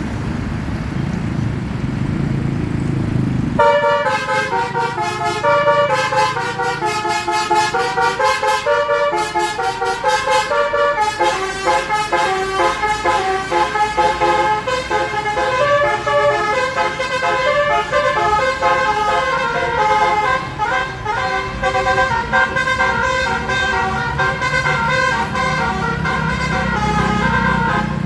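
Indonesian telolet-style musical bus horn (basuri) playing a tune of quick stepped notes, starting about four seconds in and going on to the end, over the low rumble of the bus's engine.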